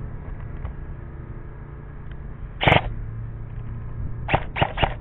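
Airsoft gun firing: one loud short crack about halfway through, then three quick sharp shots near the end, over a low steady background rumble.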